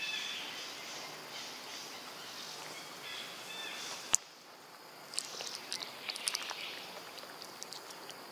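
Outdoor ambience: a steady high insect hum with a few short chirps, a single sharp click about four seconds in, then a scatter of short clicks and ticks.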